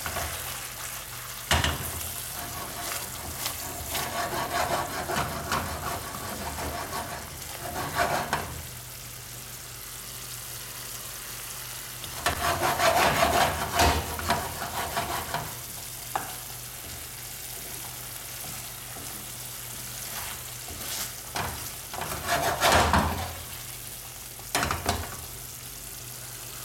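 Kingfish slices frying in a thick masala gravy, sizzling steadily in the pan, while a wooden spatula stirs and scrapes through the gravy in three spells. A few sharp knocks of the spatula against the pan stand out.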